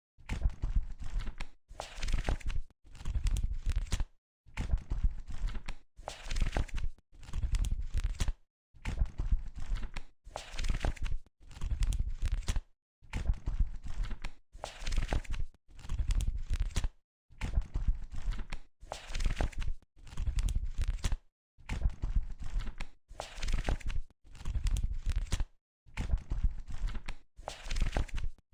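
Book pages being turned one after another, each a papery rustle and flap, about one every two seconds with a brief pause between.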